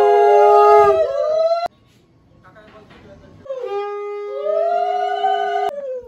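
A conch shell (shankha) blown on one steady note while women ululate (ulu-dhwani), the traditional Bengali sounds of a blessing. It comes twice, each time cutting off abruptly, with a short quieter gap of faint voices between.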